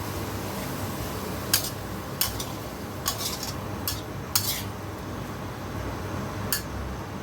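A metal utensil clinking against a cooking pan about six times, in short irregular knocks, over a steady low hum.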